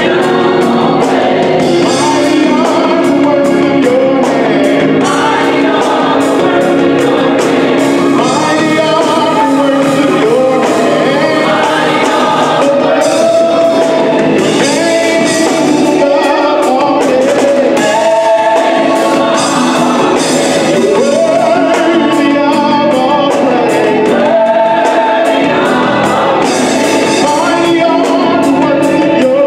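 Gospel choir singing in full voice, backed by a live band of electric bass, drum kit and organ.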